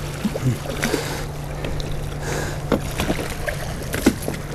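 Boat's outboard motor running steadily at trolling speed under a wash of water and wind noise, with a few sharp clicks and knocks scattered through.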